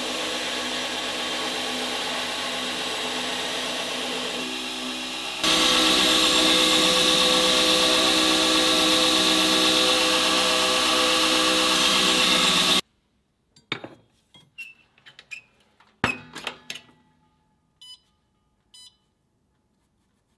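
Belt grinder running with a rebar knife blade held against the belt, a steady loud grinding that jumps louder about five seconds in and cuts off abruptly a little past halfway. Then scattered clicks and knocks, and two short beeps from an Evenheat kiln's controller keypad being pressed.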